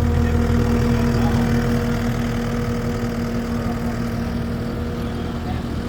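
Takeuchi track loader's diesel engine idling with a steady hum, easing slightly in level about two seconds in.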